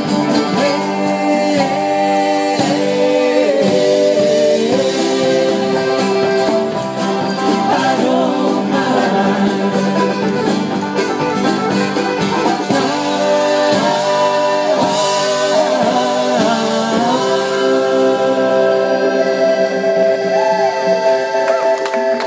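Live folk band playing and singing: several men's voices together over guitars and accordion, with a steady percussion beat.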